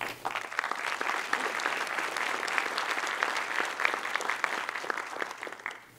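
Audience applauding: many hands clapping together, dying away just before the end.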